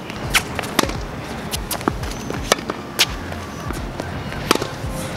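Tennis balls struck by racquets and bouncing on a hard court during a backhand rally: sharp pops at irregular intervals. Background music plays underneath.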